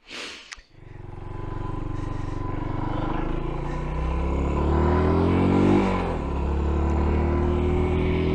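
F.B Mondial Pagani 300 single-cylinder motorcycle engine accelerating, its note rising steadily until an upshift about six seconds in drops the revs, then climbing again.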